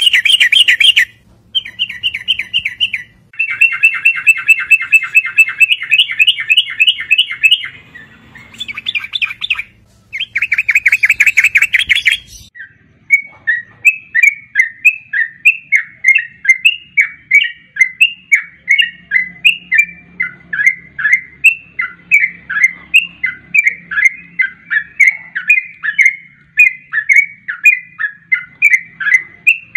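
Yellow-vented bulbul calls: rapid chattering trills in several bursts that cut off abruptly about twelve seconds in, followed by a steady run of short chirping notes, about three a second.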